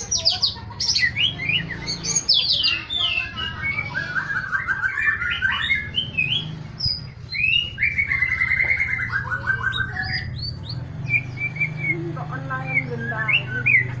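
White-rumped shama singing a long, varied song of rapid whistles, trills and chattering phrases, with no break, over a steady low hum.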